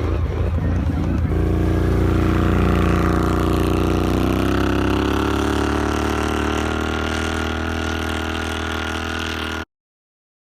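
Vehicle engine running under load, its pitch stepping up about a second in and rising again around four seconds before holding steady; the sound cuts off abruptly shortly before the end.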